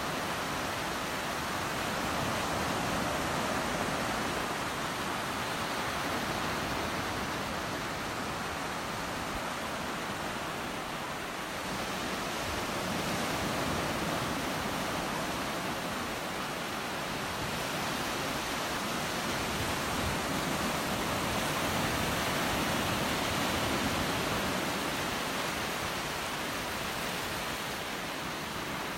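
Gulf of Mexico surf washing onto a sandy beach: a steady rush of waves that swells and eases gently every few seconds.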